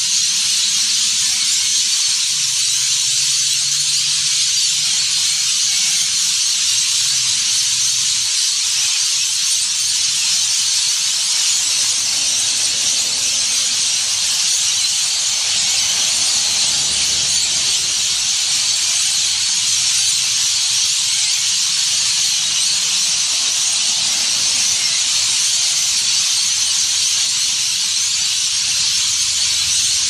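A huge flock of rainbow lorikeets screeching and chattering together as they gather to roost, a dense shrill wall of calls with no gaps. Ear-splitting.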